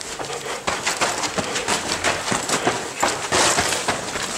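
Footsteps on sandy, pebbly ground: a run of irregular scuffs and crunches from someone walking, with handling rustle from a handheld camera.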